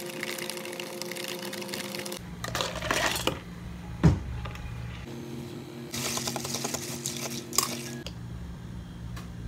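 Ice cubes clinking and rattling in plastic cups as iced coffee drinks are stirred with long plastic spoons, over a steady low hum of cafe equipment. One sharp knock comes about four seconds in.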